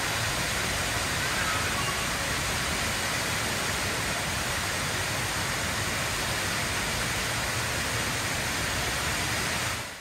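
The Rain Vortex, an indoor waterfall falling from the oculus of a glass dome into a pool, making a steady rushing hiss of falling water. It fades out near the end.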